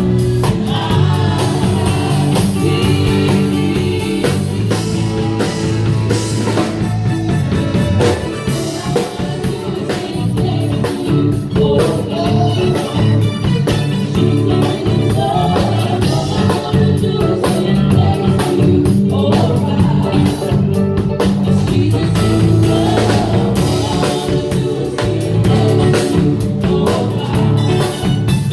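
A band playing a gospel song with drum kit and guitar, with singing.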